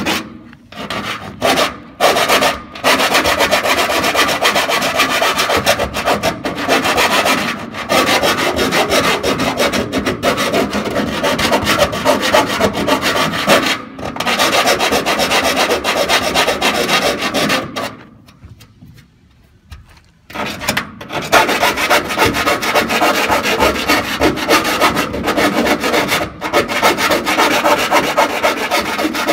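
Continuous rasping and scraping as the edges of freshly drilled holes in the tank wall are cleaned of burrs, with short pauses near the start, a brief break around the middle and a longer lull about two-thirds of the way through.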